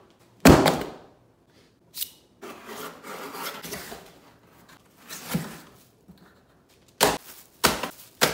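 A box cutter slicing through packing tape and scraping along a cardboard box, with a few loud knocks of the cardboard being handled. Near the end come several sharp knocks as the box is opened and plastic-wrapped items are set down on the countertop.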